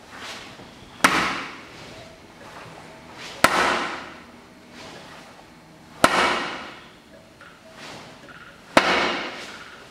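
Hand strikes on a wooden makiwara striking post: four sharp hits, one about every two and a half seconds, each followed by a short ringing decay.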